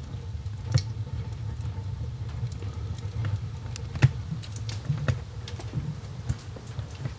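Homemade waste motor oil burner running: a steady low rumble of the burning oil vapours, with scattered sharp clicks and ticks, the loudest about four seconds in.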